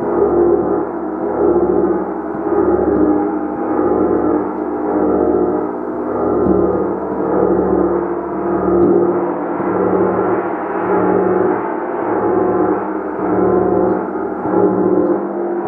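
Gong played continuously: a dense, sustained wash of many overlapping ringing tones that swells and ebbs in regular pulses about once every second and a half.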